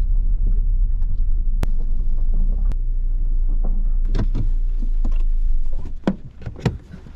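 Low, steady rumble of a car driving slowly, heard inside the cabin. The rumble dies away about six seconds in as the car stops. There is a sharp click early on and several clicks and knocks near the end from the controls as the car is parked.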